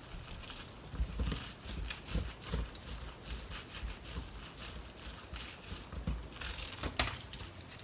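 Soft, irregular clicks and light knocks of a bamboo sushi mat (makisu) being pressed and handled around a sushi roll to shape it into a cylinder, with a few sharper clicks near the end.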